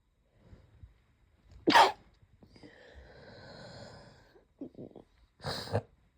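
A person's stifled sneeze: one sharp, loud burst a little under two seconds in. It is followed by a long noisy breath, a few short catches, and another sharp burst near the end.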